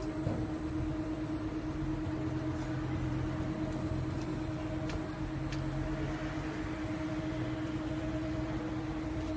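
Steady motor hum over a constant low rumble and hiss, with a couple of faint ticks about halfway through.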